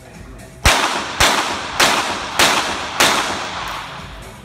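Five shots from a .22 Short rapid-fire pistol, fired about 0.6 s apart as one rapid-fire series, each followed by a short echo.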